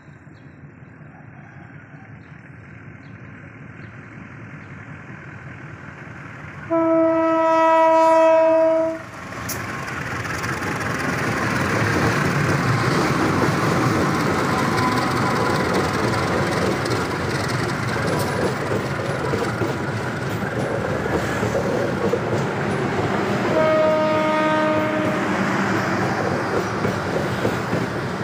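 Passenger train approaching and passing. A faint rumble builds, then comes one long locomotive horn blast of about two seconds. The loud rumble and wheel clatter of the train going by follows, with a second, shorter horn blast a few seconds before the end.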